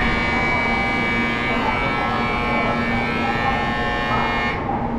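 Shinkansen platform departure buzzer sounding one steady, shrill buzz of about four and a half seconds that starts and stops abruptly, the signal that the train's doors are about to close. A steady low hum from the station and train continues underneath.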